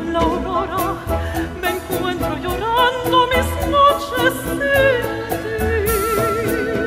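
Operatic soprano singing a slow Spanish-language song with wide vibrato over a chamber orchestra of strings and piano. Near the end she settles onto one long held note.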